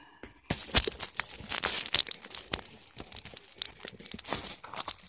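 Irregular crackling and rustling handling noise, fingers rubbing and tapping on a handheld phone close to its microphone.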